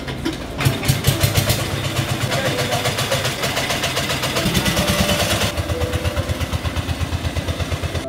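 A small engine running with a rapid, even beat.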